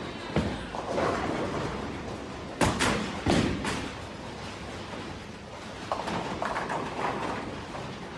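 Bowling alley sound: a bowling ball rolling down a wooden lane with a steady rumble, and several sharp knocks and thuds, the loudest about two and a half seconds in.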